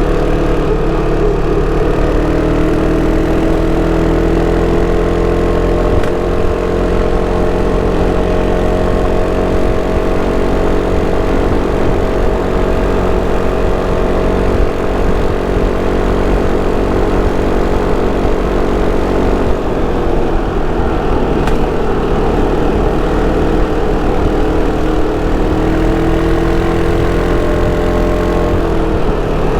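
Sym Cruisym 300 scooter's single-cylinder four-stroke engine and stock exhaust under way. The engine holds a steady pitch, then its speed dips and wavers about two-thirds of the way through and rises again near the end.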